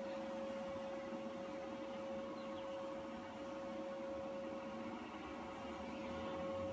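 A steady mid-pitched hum over a faint even hiss, holding one pitch throughout: background room tone.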